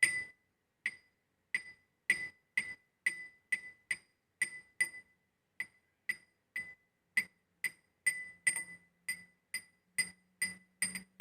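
Glass against iron in a steady run of short, ringing clinks, about two a second, each leaving a clear high ring.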